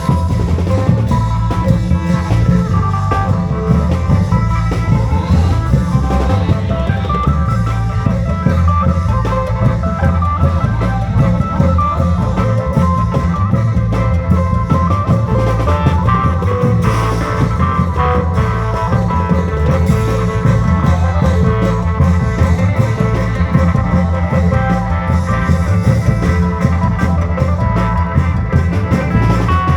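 Isan klong yao long-drum band music: drums keep a steady, driving beat under a busy melodic lead.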